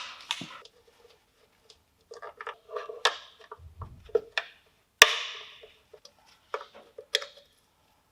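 Irregular clicks, clinks and knocks of tools and metal parts being handled while a milling machine is taken apart, some with a short ring. One sharp, loud knock comes about five seconds in.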